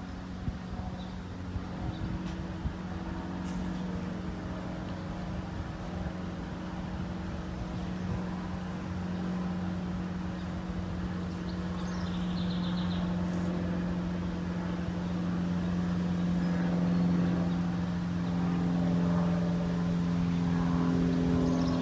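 An engine running steadily: a low, even hum that slowly grows louder.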